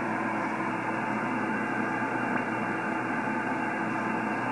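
Receiver noise from an RTL-2832U software-defined radio demodulating lower sideband around 29.1 MHz on the 10-metre band. It is a steady hiss cut off above about 3 kHz, with faint steady tones in it.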